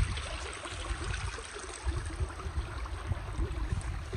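Wind buffeting the microphone in irregular low rumbles, over a steady rushing hiss.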